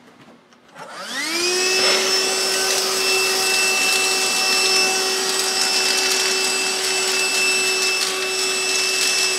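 Handheld stick vacuum switched on about a second in, its motor spinning up in a rising whine and then running at a steady pitch while it vacuums up spilled dry cat food from a wooden floor.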